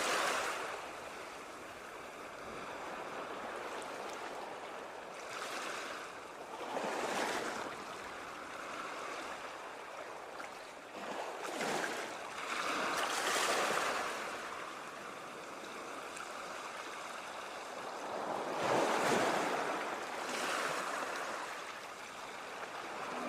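Ocean waves breaking and washing ashore: a steady hiss of surf that swells into a louder rush about every few seconds as each wave breaks.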